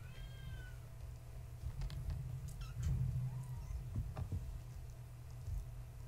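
A young kitten mewing once near the start, a short high call that rises and falls, with a fainter mew about halfway through. Light taps and scuffles of the kittens playing, over a steady low hum.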